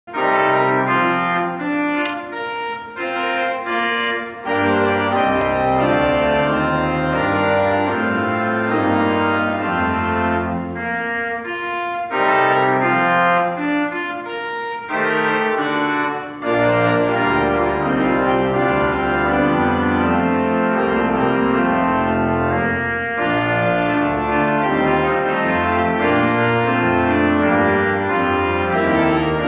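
Church organ playing slow music of sustained chords over a bass line, in phrases with short breaks between them.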